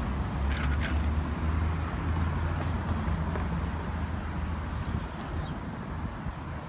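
Steady low rumble of wind on the microphone while riding a bicycle, with a couple of short clicks about half a second in.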